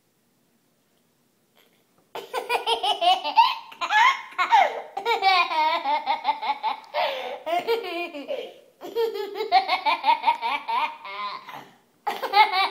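Toddler laughing in long runs of rapid, high-pitched laughter, starting about two seconds in and pausing briefly for breath twice.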